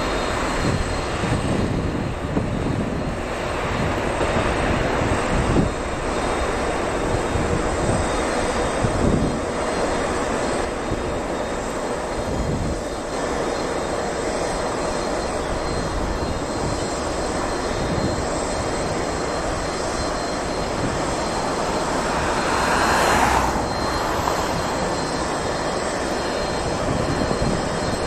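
Airbus A350-900's Rolls-Royce Trent XWB jet engines running through the landing roll after touchdown, a dense steady rumble with a brief louder surge about three-quarters of the way through.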